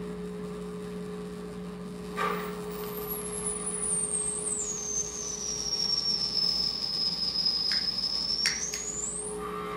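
Improvised live electronic sound: a steady low drone under a thin, high whistling tone that slides down, holds level for a few seconds, then climbs again near the end, with a few light clicks.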